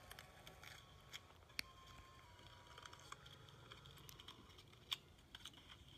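Near silence, broken by a few faint, short taps and clicks of cardboard boxes being handled and opened, the clearest about one and a half seconds in and again near the end.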